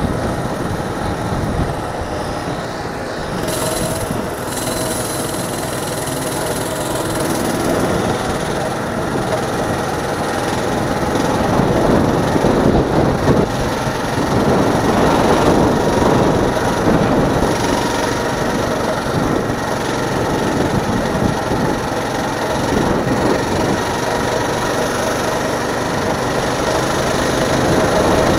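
Coleman CT200U-EX mini bike's 196cc single-cylinder four-stroke engine running steadily as the bike is ridden, with wind noise on the microphone. It gets somewhat louder partway through.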